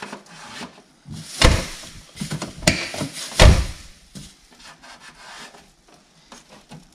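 Hands working masking tape onto a fiberglass body-kit side skirt: rubbing and light ticking, with three loud knocks in the first half.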